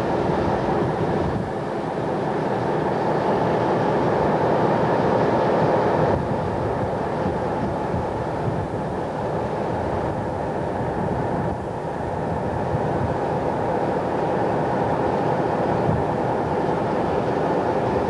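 Steady drone and rumble of a Voith tug's engines under way, with a rushing noise over it; the level swells and eases a little.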